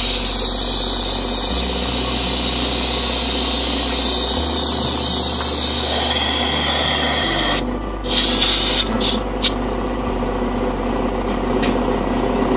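Compressed air hissing steadily from an air hose as a blow-gun nozzle is swapped onto its fitting. The hiss cuts off suddenly about two-thirds of the way in, followed by a few sharp clicks and short bursts of the coupling and gun.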